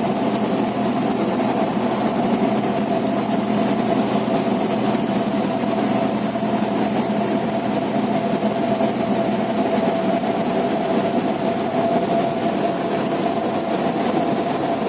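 Cessna 172's piston engine and propeller running steadily with an even drone and a steady whine.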